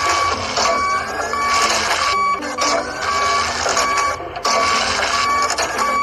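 Looped machinery sound effect for an excavator digging: a steady mechanical whirring with a high tone that cuts in and out and short rising whines, the same pattern repeating about every two seconds.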